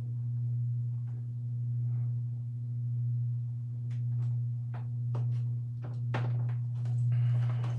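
Evergo 52-inch hugger ceiling fan running on low, its motor giving a loud, steady electrical hum that swells and fades about every second and a half, with scattered light clicks.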